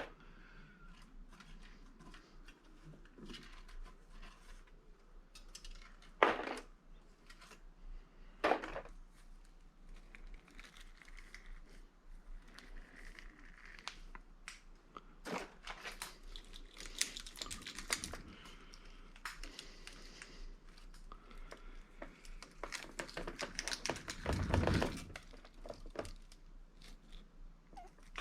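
Hand-stripping a scrap electric motor: irregular clicks, scrapes and crinkling as plastic bits and windings are picked and pried out, with sharp knocks about six and eight and a half seconds in and a louder, rougher scraping stretch near the end.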